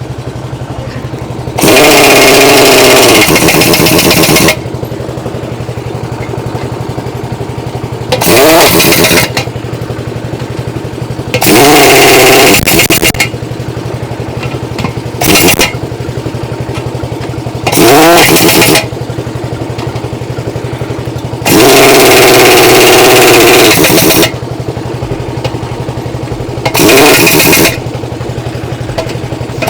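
Heavy impact wrench tightening wheel nuts in seven loud bursts of one to three seconds each. Under it an engine or generator runs steadily without a break.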